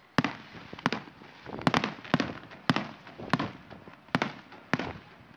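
Fireworks display: aerial shells bursting, about ten sharp bangs at uneven intervals, each with a short echo after it.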